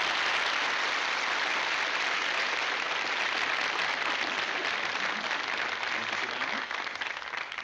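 Studio audience applauding steadily, tailing off near the end.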